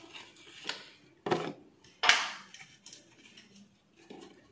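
Dishes and cutlery clinking and knocking together: several short sharp clinks with brief ringing, the loudest about two seconds in.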